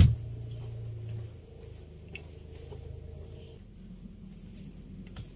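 A single thump as a person gets up off a wooden floor, then quiet room tone with a low hum that drops away after about a second and a few faint ticks.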